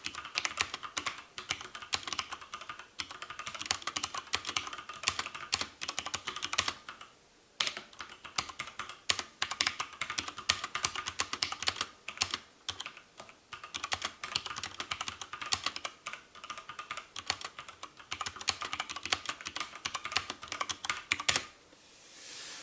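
Fast typing on two mechanical keyboards at once, one fitted with Cherry MX Brown and the other with Outemu Brown tactile switches: a dense clatter of key clicks with a few short pauses, stopping near the end.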